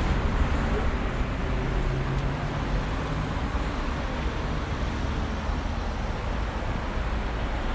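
Busy urban road traffic: a steady rumble of passing cars and other vehicles, their engines and tyres blending into one continuous wash.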